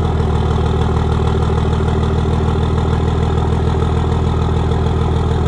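An engine idling steadily, with an even low rhythm that does not change.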